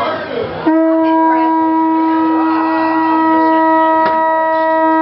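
A conch shell horn blown in one long, steady, unwavering note that starts just under a second in, after a moment of crowd chatter.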